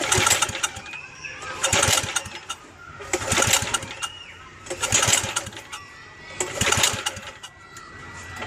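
Old tiller's small engine being pull-started over and over, five brief cranking pulls about a second and a half apart, none of them catching. The owner puts the failure to start down to the engine not getting fuel.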